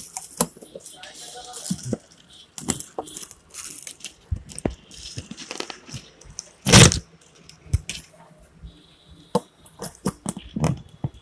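Irregular clicks, scrapes and rustles of hands and tools working on a loudspeaker, with one louder knock about seven seconds in.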